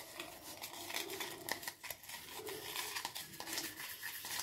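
An old toothbrush scrubbing cleaning paste around the inside of a plastic container lid: a quick, irregular run of scratchy brush strokes.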